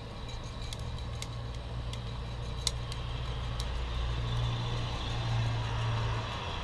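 Coffee beans in a ceramic hand roaster at the start of second crack: a few sharp, scattered cracks over a steady low rumble.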